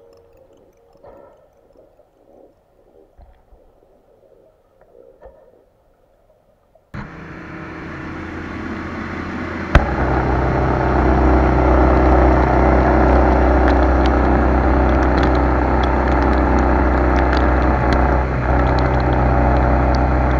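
Faint scattered sounds, then about seven seconds in a boat's motor cuts in abruptly and runs steadily with a low drone. A sharp click comes near ten seconds in, after which it runs louder.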